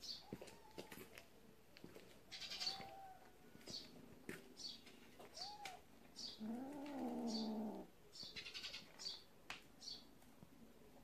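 A cat gives a long, wavering yowl that rises and falls in pitch about six and a half seconds in, the loudest sound here. Shorter cat cries come earlier, around two and a half and five and a half seconds in.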